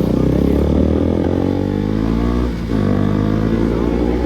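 KTM RC 200's single-cylinder engine and exhaust accelerating, the pitch climbing, then a brief drop about two and a half seconds in as it shifts up, and climbing again.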